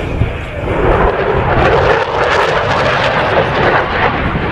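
Jet aircraft flying at an air show: a loud, steady roar of engine noise that swells about a second in and holds.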